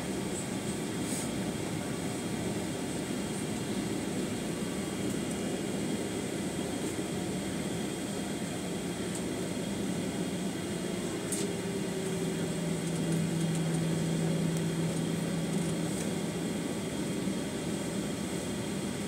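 Cabin noise of a Boeing 737-900ER taxiing, its CFM56-7B jet engines at idle under a steady air-conditioning hiss. A low hum grows stronger about twelve seconds in.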